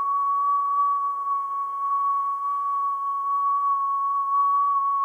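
A person whistling while breathing in through pursed lips: one long whistle held steady on a single pitch, with a breathy hiss beneath it.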